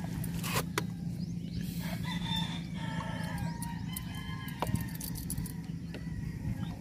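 A rooster crowing: one long wavering call starting about two seconds in, over a steady low hum, with a few sharp knocks.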